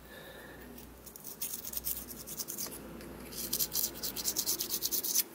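Metal rules rubbing and scraping across an engine block's deck face in quick, short scratches, coming in two runs starting about a second in.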